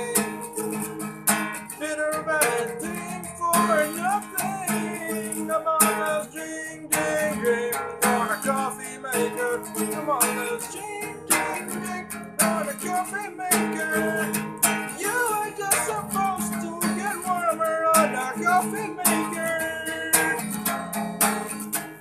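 Acoustic guitar strummed in a steady rhythm, with a man's voice singing a wavering melody over it.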